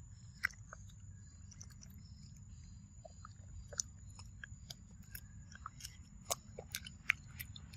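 A macaque chewing and biting soft yellow fruit, giving irregular short, sharp wet clicks and smacks that come more often in the second half.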